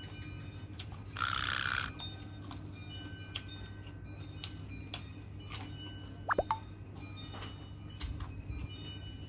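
Mouth sounds of eating by hand: soft chewing and smacking clicks over a steady low hum, with a short loud hiss about a second in and a brief sharp squeak past the middle.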